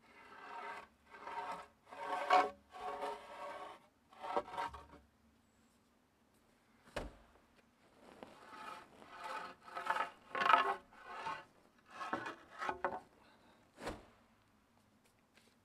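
Wooden boards being dragged out from under a loaded plastic water tank, scraping over pea gravel in a series of short rasping strokes. The strokes come in two runs, each followed by a single sharp knock as a board comes free or is dropped.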